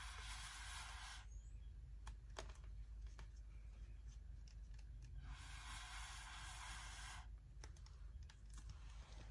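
Faint, steady hiss of air blown through a narrow tube onto wet acrylic paint, in two bursts of about two seconds, one at the start and one about five seconds in, pushing the paint outward to open up blooms. A few faint clicks come between the bursts.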